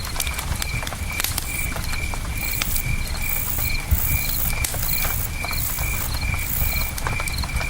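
Campfire crackling with scattered sharp pops, over the low steady rush of a river and crickets chirping evenly about twice a second. A higher, buzzing insect call pulses for a few seconds through the middle.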